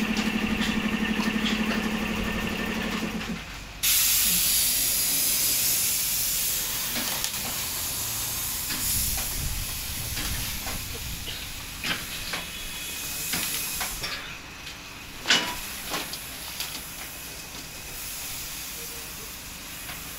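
An engine runs at a steady hum and stops about three and a half seconds in. A loud steady hiss then starts suddenly and slowly fades, with a few scattered clicks and knocks, the loudest about fifteen seconds in.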